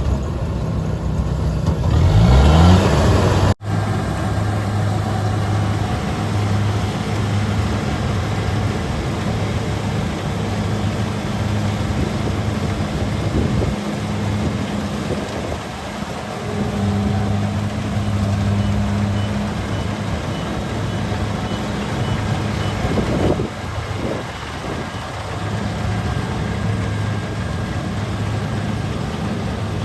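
Kubota DC-70G rice combine harvester running steadily under load, its diesel engine humming with the threshing machinery. The engine pitch swings up and down briefly near the start, and the sound breaks off for an instant a few seconds in.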